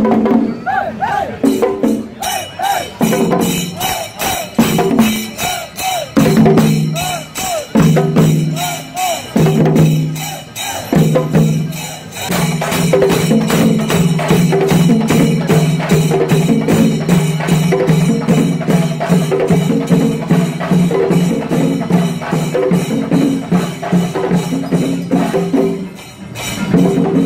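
Percussion ensemble playing fast, dense drum and cymbal strokes. Over it, a wind instrument plays short repeated phrases, then holds one long note from about twelve seconds in.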